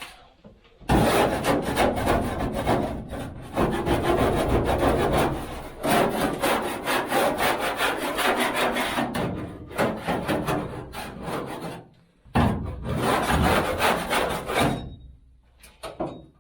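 Old fiberboard lining being scraped and torn out of the van's body: long stretches of rough scraping and ripping, with a short break about twelve seconds in.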